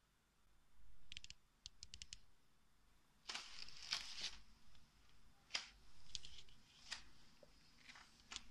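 Faint handling noise: scattered soft clicks and brief brushing rustles, a second or so apart.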